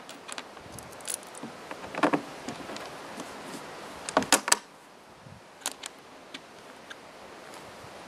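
Small metal bolts and washers and a plastic feeder trough end piece being handled: a few light clicks and clinks, a louder knock about two seconds in and a quick cluster just after four seconds, over a steady background hiss.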